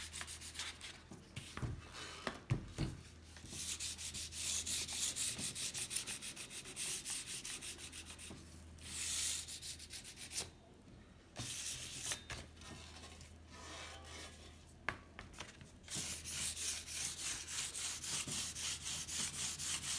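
Fine 800-grit sandpaper on a sanding block rubbed dry in rapid back-and-forth strokes over the painted steel tube of a vintage bicycle frame. The strokes stop briefly about halfway through, go quieter for a few seconds, then pick up strongly again near the end.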